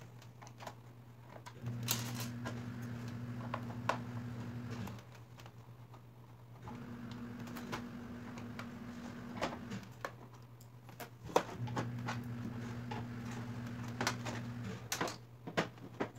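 Light clicks and knocks of hands handling the plastic back housing of an LED TV. Under them is a low electrical hum that grows louder for about three seconds at a time, three times.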